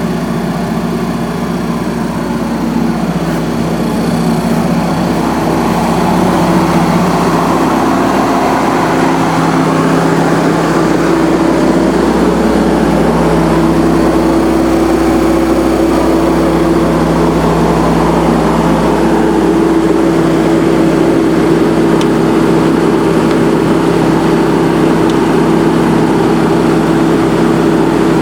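Generac 27 kW QuietSource standby generator's liquid-cooled inline-four natural gas engine running steadily at about 1800 rpm, growing a little louder about five seconds in.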